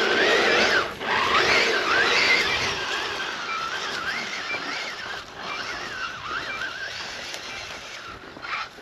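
Whine of a Losi Tenacity TT Pro RC short-course truck's 2350 kV brushless motor, its pitch rising and falling with the throttle, over the hiss of its tyres spinning in sand as it tries to drive free after getting high-centered. It is loudest in the first few seconds and then fades.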